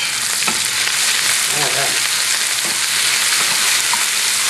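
Bell pepper strips and capers sizzling steadily in hot oil in a frying pan while a wooden spoon stirs them, with a couple of light knocks of the spoon against the pan.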